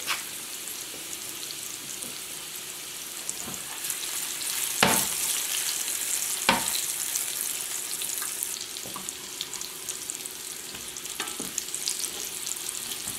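Boiled potato pieces sizzling in hot fat in a frying pan, a steady hiss that swells a few seconds in. A few sharp knocks come as the pan is shaken and the potatoes are turned.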